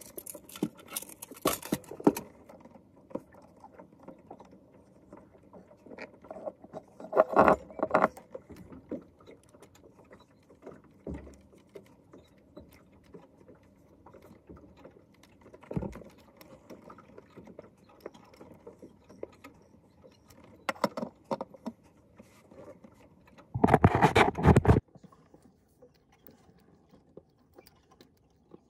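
Scattered clicks, taps and small rattles of metal parts being handled while a fuel-tank sending unit's float arm is measured, screwed and fitted, with a louder noisy burst lasting about a second near the end.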